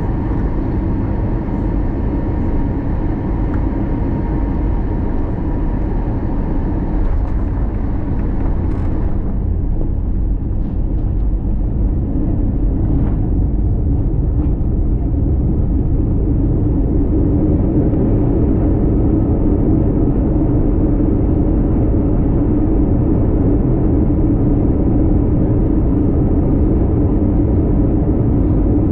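Airbus A321 cabin noise while rolling on the runway after landing: a steady rumble from the wheels and engines. A higher hiss fades out about nine seconds in as the aircraft slows.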